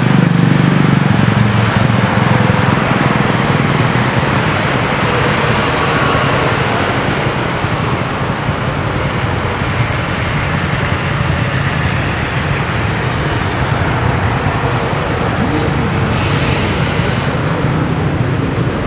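Airliner jet engines running loud, a steady rushing roar that is heaviest in the low end at first and slowly eases off.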